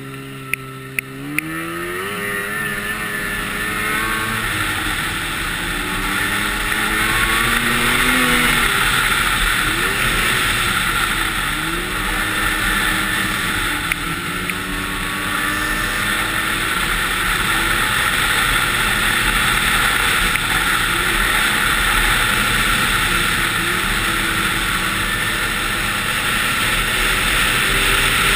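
Snowmobile engine accelerating from a slow start, its pitch climbing over the first few seconds and getting louder, then running at trail speed with the pitch rising and falling as the throttle changes, under a steady rushing noise. A few light clicks sound in the first second or so.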